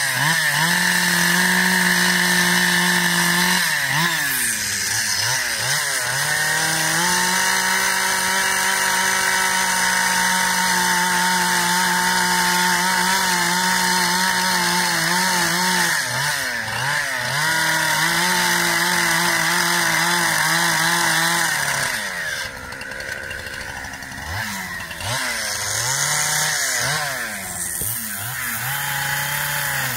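Two-stroke chainsaw running at high revs while carving a block of wood, its engine note dipping and climbing back several times as the chain bites in and the throttle is eased. For a few seconds about three-quarters of the way through it runs quieter, then revs back up.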